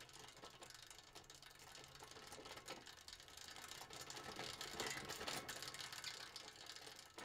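Sound-effect recording of an older, squeaky bicycle being handled: faint, dense mechanical clicking and rattling that grows a little louder mid-way. The bike sounds as if it might need a little work.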